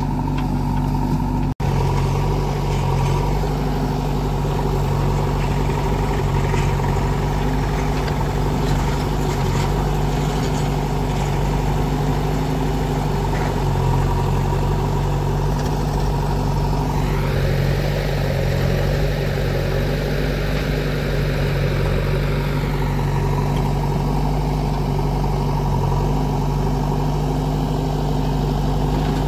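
Diesel engines of a JCB 3DX backhoe loader and a John Deere tractor running steadily, with a momentary gap in the sound near the start. About two-thirds of the way in, a higher, rougher engine noise swells and then fades over some five seconds.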